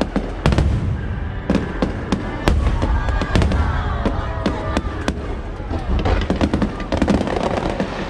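Aerial fireworks going off in rapid succession: many sharp bangs and crackles over a continuous low rumble.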